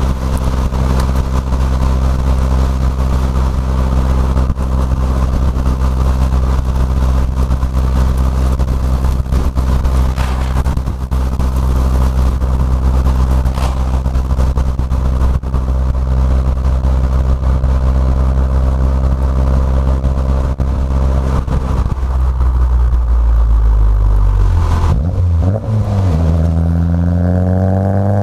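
Fiat 500 Abarth's 1.4-litre turbocharged four-cylinder, fitted with a catless downpipe and a Ragazzon cat-back exhaust with twin mufflers, heard from inside the cabin: a steady drone while cruising at low revs. About 22 seconds in the pitch drops and wavers through a downshift. It then climbs steadily near the end as the car accelerates.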